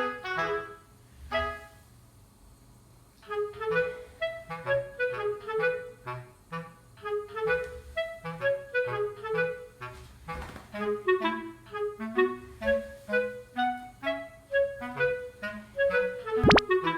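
Background music: a bouncy tune of short, detached notes on a reedy wind sound, pausing briefly about two seconds in. A sharp click near the end.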